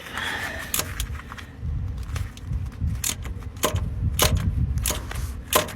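Irregular metallic clicks and clinks of a hand tool working loose the 10 mm mounting bolts of an AC compressor.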